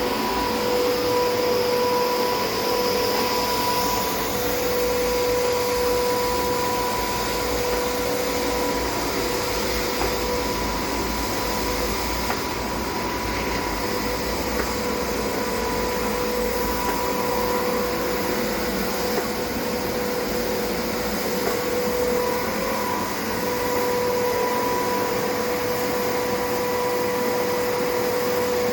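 Electric millstone flour mill running steadily: a constant motor hum with a steady whine over a grinding hiss.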